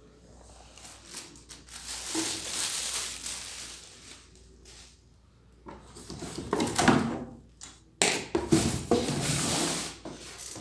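Rustling, scraping and clattering of the pressure washer's plastic parts and packaging being handled. It comes in three noisy stretches of a few seconds each, the last starting abruptly about eight seconds in.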